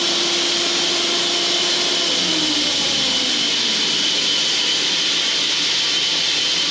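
Band sawmill running, its blade cutting through a log with a steady, loud hiss over the engine. About two seconds in, a low tone in the machine's sound slides down in pitch.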